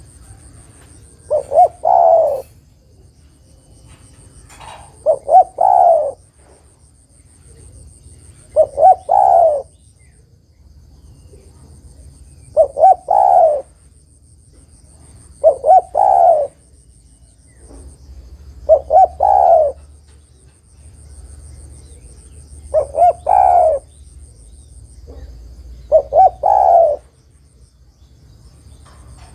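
Female spotted dove cooing, a lure call to males. She repeats one phrase eight times, about every three and a half seconds: two or three short coos followed by a longer, louder coo.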